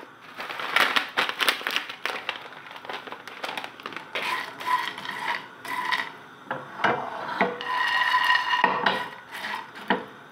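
Silicone spatula stirring and scraping pieces of edible gum (gond) around a non-stick frying pan: irregular clicks and scrapes, with squeaky tones coming and going through the middle and later part.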